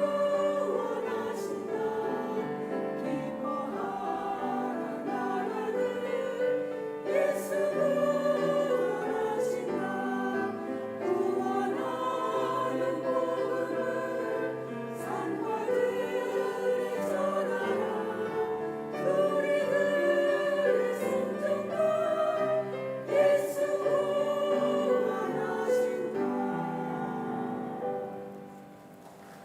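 Choir singing a gospel song in several held voice parts, fading out on the closing notes near the end.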